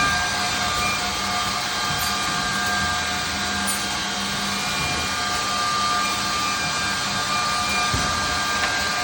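Edge banding machine running steadily, a constant machine noise with several high steady whining tones over it.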